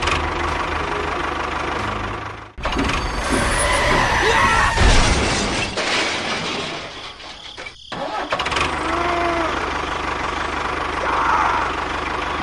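Engine running steadily, broken by abrupt cuts about two and a half and eight seconds in.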